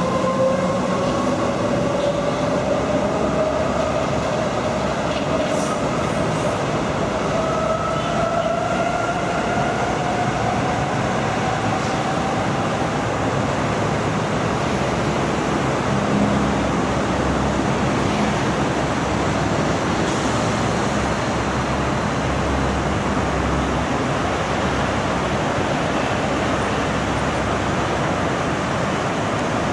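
Medellín Metro electric train accelerating: a rising electric motor whine over the steady rushing of wheels on rail, leveling off into a steady running noise about halfway through.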